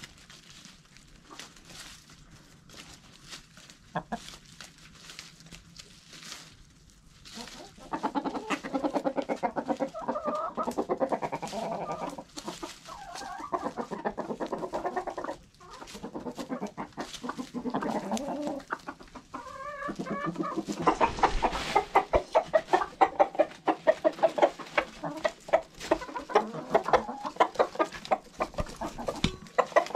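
Flock of chickens clucking as they feed on a pile of fresh greens. The clucking comes in rapid pulses, sets in about eight seconds in and is loudest in the last third.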